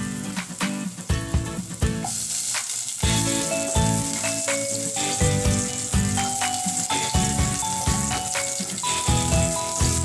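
Background music with a steady beat and a melody, over a steady sizzle from ginger cooking in a small saucepan; the sizzle grows louder about two seconds in.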